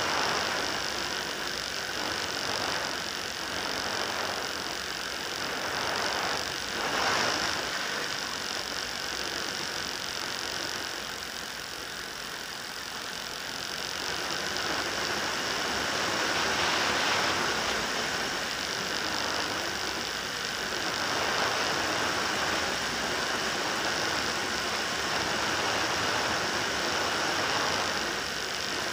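FPV model aircraft's motor and propeller running steadily in flight, heard from the onboard camera with wind rushing past it. The sound swells and eases a few times.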